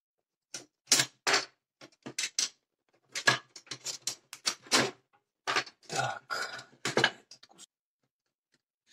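Hands handling an opened plastic power strip and its wires: an irregular run of short knocks, clicks and scrapes of plastic and cable that stops near the end.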